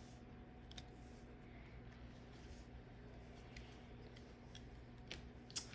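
Faint clicks and taps of trading cards being handled, over a low steady hum, with two slightly louder clicks near the end.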